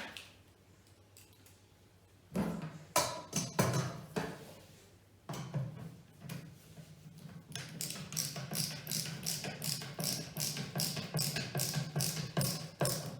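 A hammer tapping wooden flat-pack drawer parts together: a few separate knocks, then from about eight seconds in a steady run of quick taps, about four a second.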